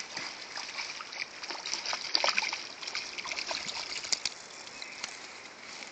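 A hooked Arctic char splashing and thrashing in shallow water as it is reeled in and pulled onto the shore stones: a run of irregular splashes that thins out after about four seconds.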